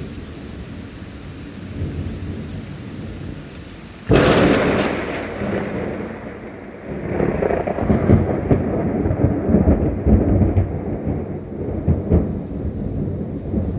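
Thunder: a sudden sharp crack about four seconds in, then long rolling rumbles a few seconds later, over a steady hiss of rain.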